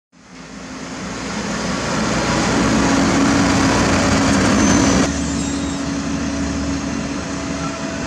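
Diesel engine of a UD Trucks Quester dump truck running as the truck moves close by, fading in over the first couple of seconds. About five seconds in the sound changes abruptly to a steadier engine noise with more low hum.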